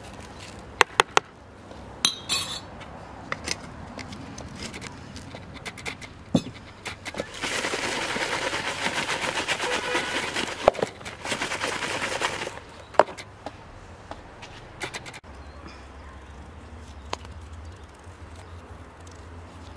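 A spoon sprinkling salt over eggplant wedges in a plastic bowl, with a few sharp clicks, then about five seconds of dense rustling as the salted eggplant wedges are tossed in the bowl. After that it turns quieter, with a low steady hum.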